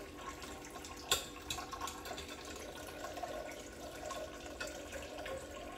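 Tap water trickling into a stainless steel kitchen sink during dishwashing, with small scattered ticks and one sharper knock about a second in.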